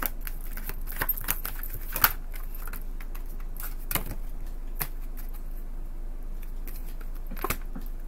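Tarot cards being shuffled and handled in the hands: soft scattered card clicks and slides, the sharpest about two seconds in, with a few more near four and five seconds and one near the end.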